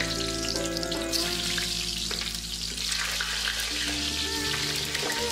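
Potato pieces dropped by hand into hot oil in a cast-iron kazan, the oil sizzling and spitting and growing denser as more pieces go in.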